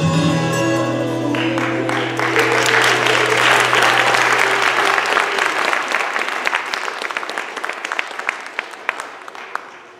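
A song's final held chord rings out and fades while an audience applauds. The clapping swells about a second in, then thins to scattered claps and dies away near the end.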